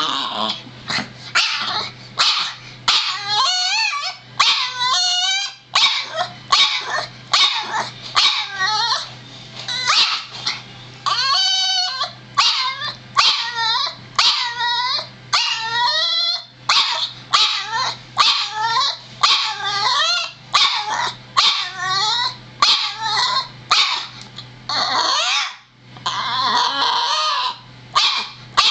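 Boston Terrier barking over and over, about one to two barks a second, some barks drawn out longer and wavering in pitch.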